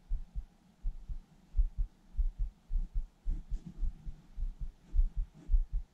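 A heartbeat picked up through the chest-mounted camera: soft, low double thumps at a steady rhythm, about one and a half beats a second. There are faint brief rustles about three and a half and five and a half seconds in.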